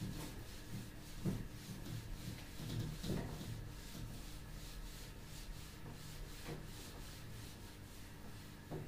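Whiteboard being wiped clean of marker writing: soft, repeated rubbing strokes across the board's surface.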